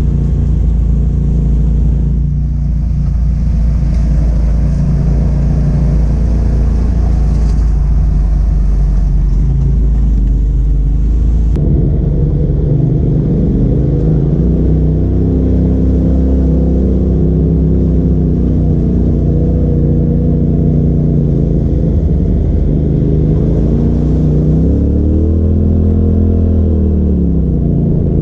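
Side-by-side UTV engine running as it crawls along a rough trail, heard from inside the cab. About twelve seconds in the sound cuts to a second machine, whose engine note rises and falls with the throttle, with a longer rev up and back down near the end.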